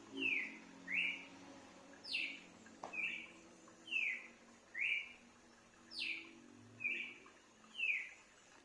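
A bird calling: a series of about ten short, clear chirps, roughly one a second, some sliding down in pitch and some sliding up.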